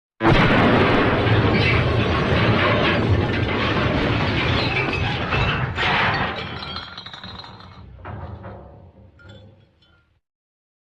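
MGM cartoon 'elephant smash' crash sound effect: a sudden, long smash of breaking glass and clattering debris, with a second crash about six seconds in, then scattered rattles dying away.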